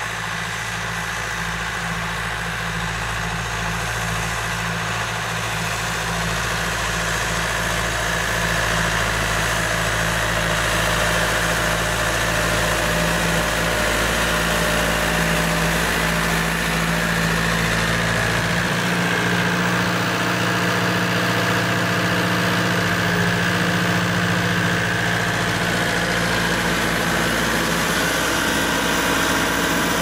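Massey Ferguson 3075's 90 hp turbocharged Perkins diesel engine working under load while pulling a three-furrow Vogel & Noot plough through light fen silt. It grows louder over the first ten seconds or so, then holds steady.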